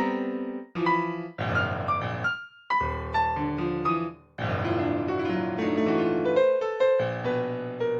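Background piano music: sustained chords changing every second or so, broken by a few short pauses.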